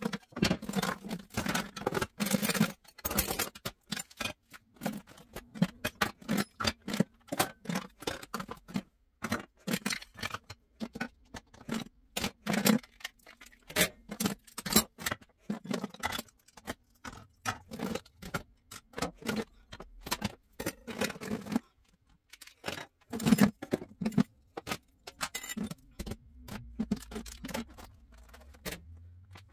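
Metal and plastic kitchen utensils clattering and jangling as they are lifted out of a wooden drawer: an irregular run of clicks and knocks, with the clatter thinning out near the end.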